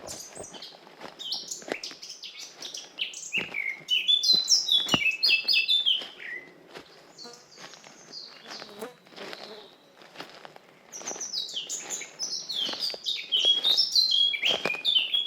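Songbirds singing in a summer forest, with quick runs of high, falling notes. The loudest bursts come about four seconds in and again from about eleven seconds in. Soft footsteps on the forest path tap along underneath.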